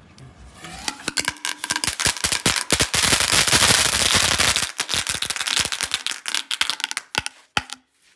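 Lit ground firework spraying sparks and crackling: a rapid crackle of sharp pops that builds for about a second, is densest a few seconds in, then thins to scattered pops and stops near the end.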